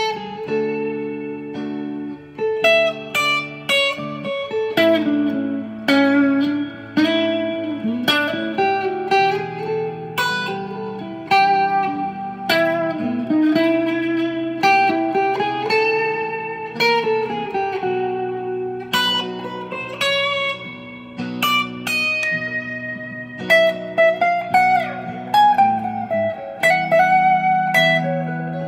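Stratocaster-style electric guitar playing a slow, clean lead line of picked single notes with string bends and slides, over a slow backing track of sustained chords and bass.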